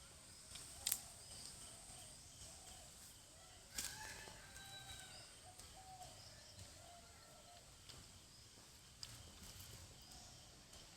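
Quiet outdoor ambience with faint bird chirps and a steady insect-like hum, broken by a few sharp clicks, the loudest about four seconds in.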